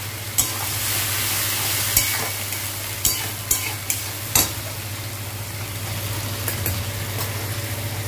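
Tomato, onion and potato masala sizzling in hot oil in a kadai while a steel slotted spatula stirs and scrapes through it, knocking sharply against the pan about five times in the first half.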